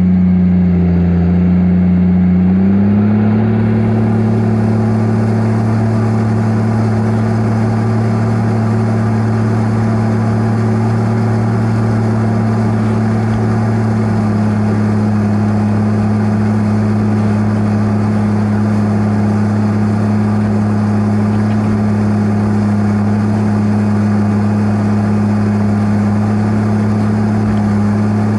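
Heavy-equipment diesel engine running steadily under load; its pitch steps up slightly about three seconds in and then holds.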